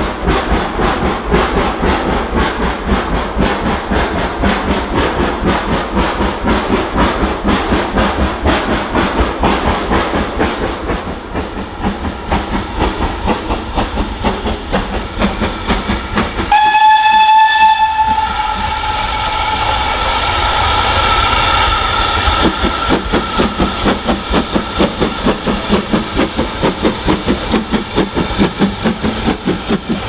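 BR Standard Class 5 4-6-0 No. 73129, with Caprotti valve gear, approaching under steam with a loud, crisp exhaust bark in rapid, even beats. About halfway through comes a short, loud whistle blast, the loudest moment. A quieter, steady high tone then runs for several seconds while the beats carry on.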